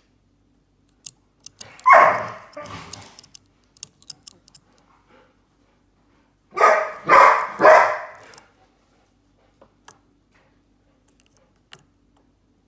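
Pet dogs barking while playing: two barks about two seconds in, then three quick barks past the middle.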